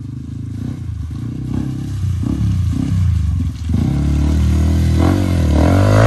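Trail motorcycle engine running at low speed, then opening up about four seconds in, its pitch rising and falling with the throttle.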